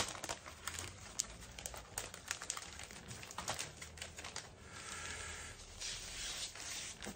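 Clear plastic bag crinkling and rustling as it is opened by hand, with many small scattered clicks and crackles from the plastic.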